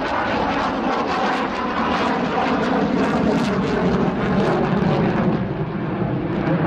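A MiG-29A fighter's twin Klimov RD-33 turbofan engines running loud and steady during a hard display turn: a dense jet roar with a ragged crackle through it.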